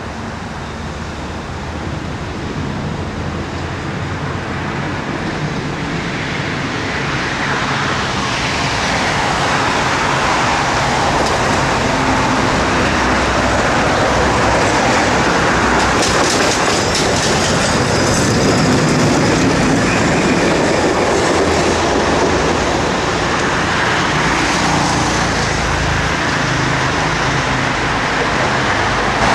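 A tram running along street tracks, the sound of its wheels on the rails growing louder over the first eight seconds or so and staying loud as it passes close by.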